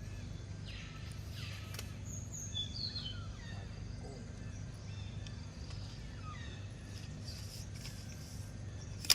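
Outdoor ambience of short high bird chirps and whistled calls, some gliding down in pitch, over a steady low hum. There is one sharp click near the end.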